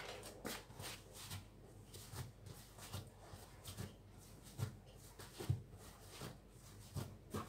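Hands pressing, patting and turning a mound of soft, risen bread dough on a kitchen worktop: faint, soft thumps about once a second.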